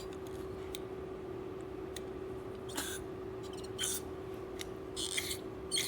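Small carburetor being blown through: a few short hisses of spray or air forced through its passages, about three seconds in, four seconds in, around five seconds and once more near the end, over a steady low hum and a few light handling clicks.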